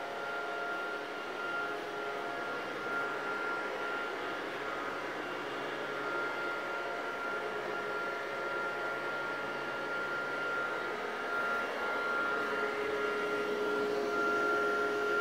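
Electric fan of an air hover soccer disc running, a steady whir with a thin high whine over a hiss as the disc floats on its air cushion.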